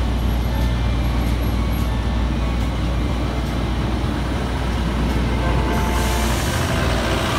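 Motor vehicle engine running steadily: a constant low rumble with a wash of road noise.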